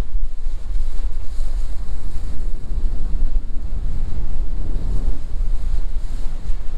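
Wind buffeting the microphone as a loud, uneven low rumble, over water rushing past the bow of a trawler under way.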